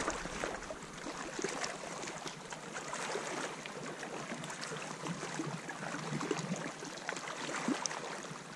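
Small wind-driven waves lapping and splashing against a shallow rocky lake shore, a steady wash of water with many small crackles.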